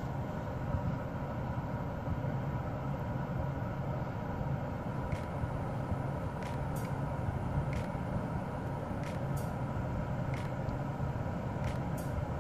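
Steady low background rumble, with a few faint soft clicks scattered through the second half.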